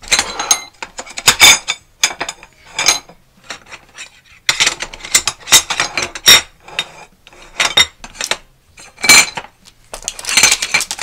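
Lengths of black anodized aluminium extrusion clinking and clattering against one another as they are picked up, stacked and set down on a wooden tabletop. Each knock is sharp with a short metallic ring, in an irregular string of hits.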